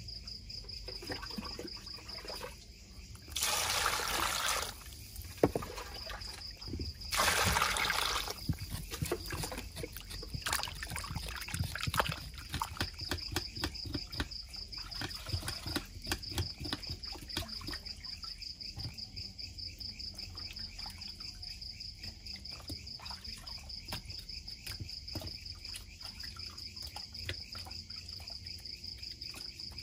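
Hands swishing and rubbing chicken pieces in a plastic bowl of water, with small splashes and two loud rushes of water being poured about three and seven seconds in. Crickets chirp steadily behind.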